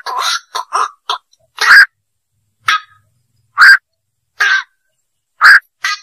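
Black-crowned night heron calls: harsh single croaks, the loudest three about two seconds apart, with shorter, fainter calls in between.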